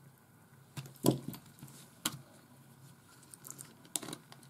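Small clicks and taps of a screwdriver and fingers prying a camcorder's circuit board loose from its metal casing: a handful of sharp clicks, the loudest about a second in, with light ticks between.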